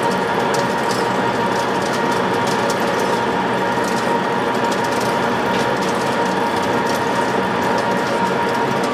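WMW Magdeburg DP3 facing lathe running: a steady, even mechanical drone with a constant tone and scattered light ticks on top.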